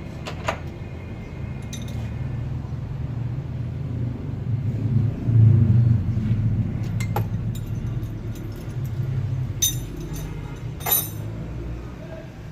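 Sharp metallic clinks of hand tools while a spark plug is swapped on a misfiring engine, over a steady low rumble that swells briefly near the middle.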